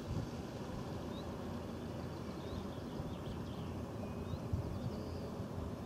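Wind buffeting the microphone in uneven low rumbles, with a few faint bird chirps scattered through.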